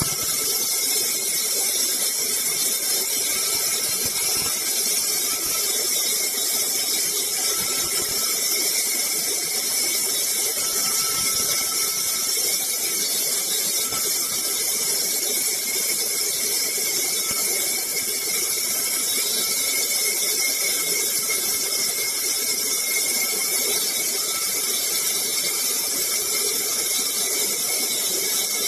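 Woodworking machine running steadily with a high-pitched whine over a strong hiss, unchanging throughout.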